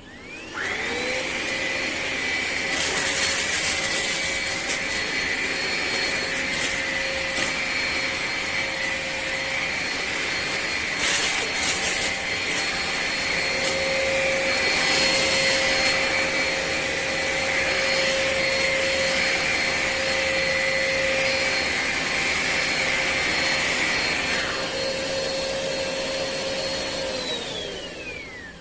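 Hoover ONEPWR Evolve Pet Elite cordless stick vacuum switched on, its motor whining up to speed within a second and then running steadily under suction, with a few brief louder rushes. Near the end it switches off and the whine falls away.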